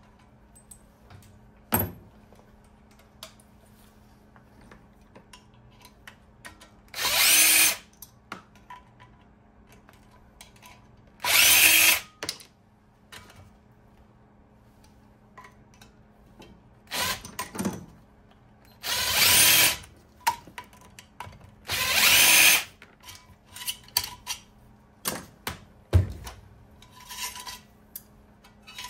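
Cordless power driver spinning bolts out of an electric motor's steel casing in five short runs of about a second each, each run spinning up in pitch as it starts. Between the runs come sharp metal clicks and knocks as the loose bolts are handled and set down on the bench.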